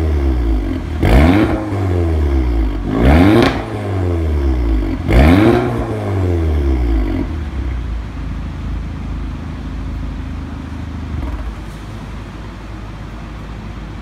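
Audi TT 45 TFSI's turbocharged 2.0-litre four-cylinder through an Fi Exhaust valved catback with catless downpipe, exhaust valve open, revved in three quick blips about two seconds apart. Each rises sharply and falls back, and the engine then settles to a steady idle about seven seconds in.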